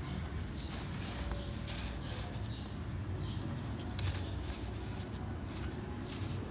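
A hand digging into and crumbling dry red dirt, making short, irregular gritty crunches and rustles over a steady low rumble.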